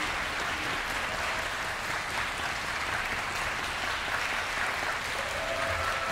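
Concert-hall audience applauding steadily at the end of a performance.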